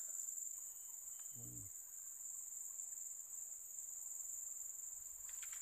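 Steady, high-pitched insect chorus from the surrounding forest, a continuous shrill drone at two pitches.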